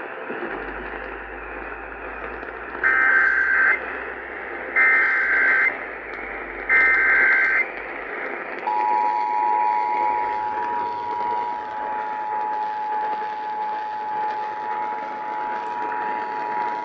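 Emergency Alert System activation tones received over AM radio, with hiss throughout. First come three short bursts of SAME digital header data, each under a second, about two seconds apart. Then, about nine seconds in, the steady two-tone EAS attention signal begins, the tones that open a warning message.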